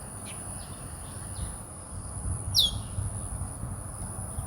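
Outdoor ambience: a bird gives one loud chirp, sliding down in pitch, about two and a half seconds in, with a few fainter chirps before it. Under it run a steady high thin whine and a low rumbling haze.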